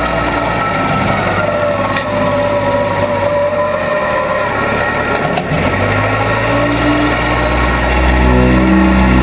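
Case 580B backhoe engine running steadily while working. A short knock comes about five seconds in, after which the engine note deepens and grows slightly louder.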